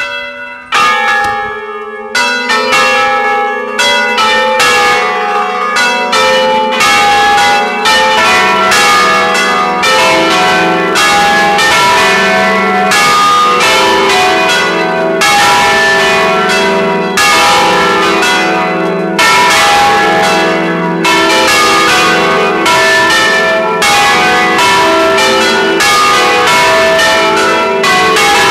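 Several church tower bells of different pitches ringing together, rung electrically from the tower's panel. A few separate strokes come first, then from about two seconds in a fast, continuous peal of overlapping strokes, each bell ringing on.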